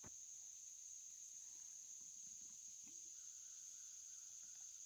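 Crickets trilling in a faint, steady, high-pitched chorus.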